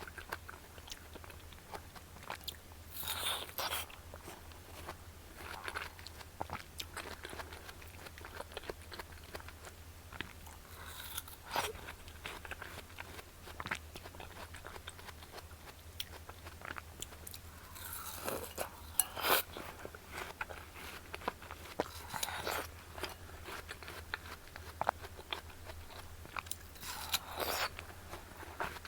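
Biting into crisp watermelon and chewing it, with about five louder crunchy bites several seconds apart and small wet clicks between them.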